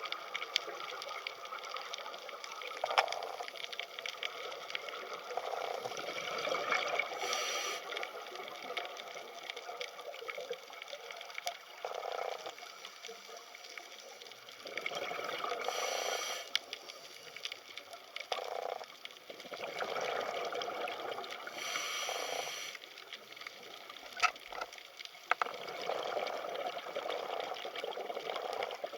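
Underwater ambience: steady hiss of sea water with bubbling and gurgling that swells every few seconds, and a few sharp clicks.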